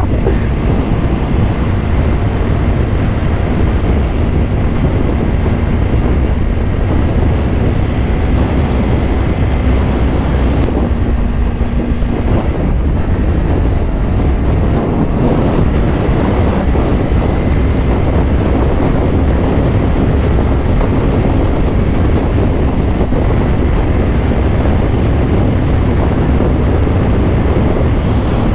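Steady highway-speed riding noise on a 2024 Kawasaki Ninja 500: wind rushing over the rider's microphone, louder than the parallel-twin engine running underneath at a steady cruise.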